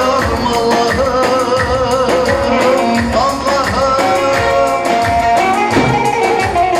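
Live Turkish halay dance music: a davul drum keeping a steady beat under a wavering, ornamented melody from saz and other melody instruments.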